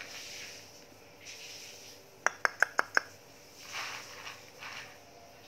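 Husky puppy lapping water from a plastic container, in soft wet patches. About two seconds in, a quick run of five light, ringing clinks, the loudest sound.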